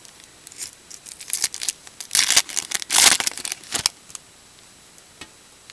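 Trading card pack wrapper torn open and crinkled by hand, a run of tearing and crinkling lasting about three seconds, loudest in the middle, followed by a few faint ticks of cards being handled.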